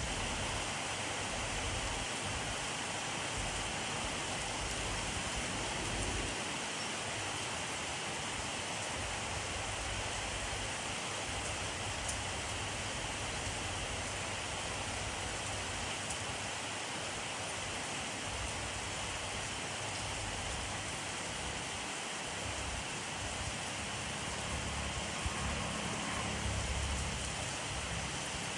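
Steady rainfall, an even hiss of rain on surfaces with a few individual drops ticking through it and a low rumble that swells and fades now and then.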